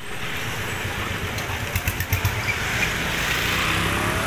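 Street traffic of scooters and motorcycles: engines running and passing, getting a little louder about three seconds in, with a few light clicks around two seconds in.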